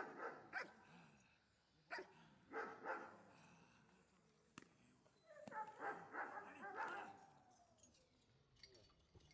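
Giant Schnauzer barking during protection (bite-work) training, aroused at a decoy holding a bite sleeve: a few short, separate barks in the first three seconds, then a denser run of barking a little past the middle.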